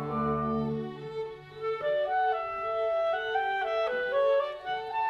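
A clarinet solo with string orchestra, classical music. A held orchestral chord dies away about a second in, then the clarinet's melody steps up and down over a softly pulsing repeated accompaniment.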